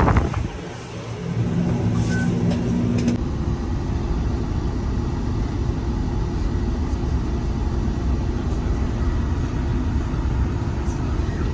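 Steady engine and road rumble of a moving city bus, heard from inside the cabin, with a short beep about two seconds in.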